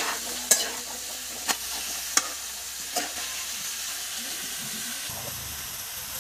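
Cubed squash frying in an oiled pan, sizzling steadily, while a slotted metal spatula stirs it and clinks against the pan about five times in the first three seconds. A low hum comes in near the end.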